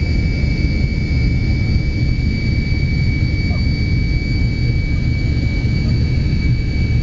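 Tupolev Tu-154M's three rear-mounted Soloviev D-30KU-154 turbofans running steadily, heard from inside the cabin: a deep rumble under a steady high whine.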